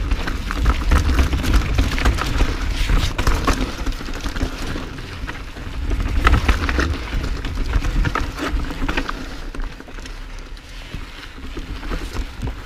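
2015 Santa Cruz Nomad mountain bike riding down a dirt trail, its knobby Schwalbe tyres crackling over dirt, roots and rocks and the bike rattling over the bumps. A low rumble runs under it, and everything eases off a little near the end.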